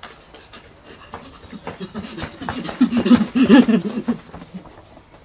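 Running footsteps on asphalt coming closer and passing close by, loudest about three seconds in, with heavy breathing as the runner goes past.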